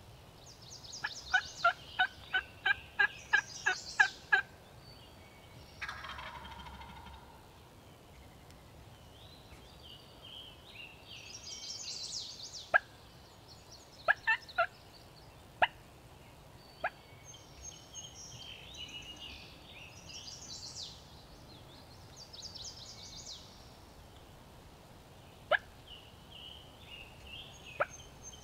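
Wild turkey calling: a run of about ten quick yelps, then a rattling gobble about six seconds in. Single sharp clucks follow now and then, with songbirds singing.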